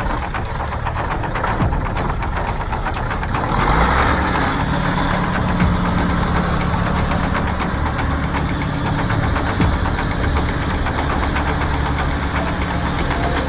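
Heavy diesel engine of a Mack Cruise-Liner cabover truck idling with a fast, even pulsing, swelling briefly about four seconds in.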